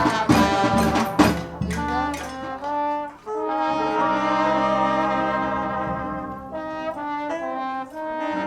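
Brass-led music: quick accented stabs for the first two seconds, then long held chords of several notes.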